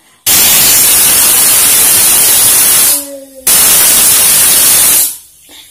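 Pressure cooker whistling: steam rushes out under the weight valve in a loud hiss, twice, with a short break a little past halfway. It is the cooker's whistle at full pressure; the whistles are counted to time the cooking, five or six for this rice.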